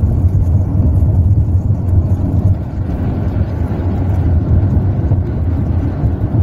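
Steady low road and engine noise heard from inside a moving car.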